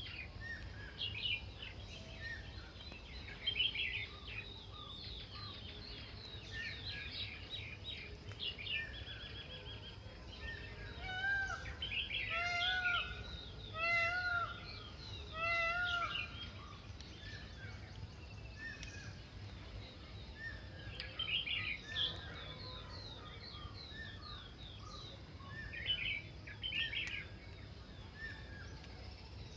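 Wild birds calling, many short high chirps and trills overlapping. In the middle one bird gives about four louder, arched calls roughly a second and a half apart. A low, steady background rumble runs underneath.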